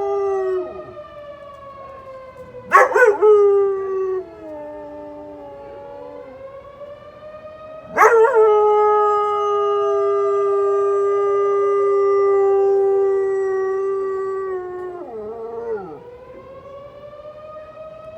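Outdoor tornado siren wailing during its weekly test, its pitch slowly falling and then rising, while a dog howls along with it: a short howl about three seconds in, a long held howl from about eight to fifteen seconds, and a brief falling howl just after.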